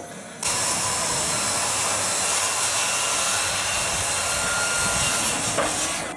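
Steady, loud rushing machine noise that starts suddenly about half a second in and drops away near the end.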